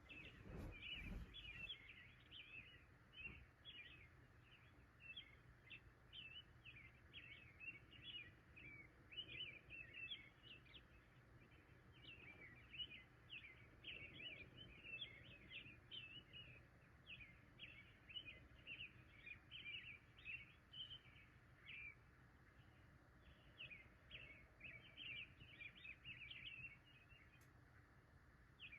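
Faint chorus of small birds chirping: many short, quick downward chirps overlapping almost without a break, over a faint low rumble. A soft low thump sounds in the first second.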